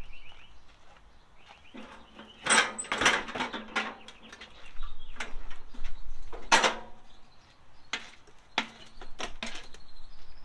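Irregular clacks, knocks and rattles of hard objects being handled, in clusters with short quiet gaps between them.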